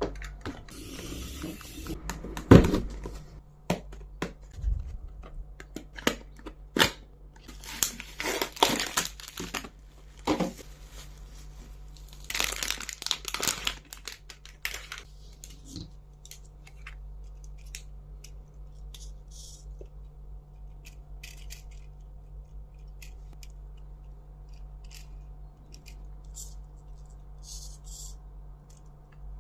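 Toy packaging being opened by hand: plastic and cardboard tearing and crinkling, with sharp knocks and clicks, busiest in the first half, the loudest knock about two and a half seconds in. After that only a few faint ticks over a low steady hum.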